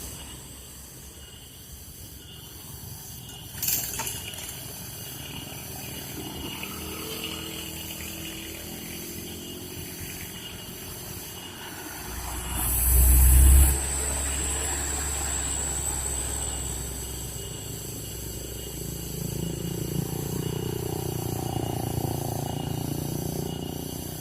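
Heavy loaded diesel trucks labouring up a steep climb, the engine note rising and falling. A loud low rumble comes about halfway through, followed briefly by a thin high whine.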